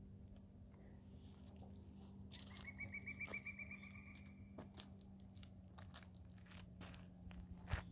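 Faint footsteps crunching along a trail, with a short high rapid trill about two and a half seconds in.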